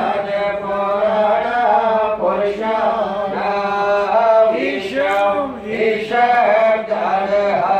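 A man chanting Sanskrit mantras at a Hindu havan fire rite, a continuous melodic recitation into a microphone.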